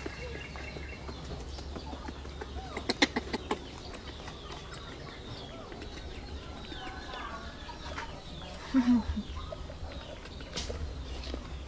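Bird calls: short chirps and clucks, with a quick cluster of clicks about three seconds in.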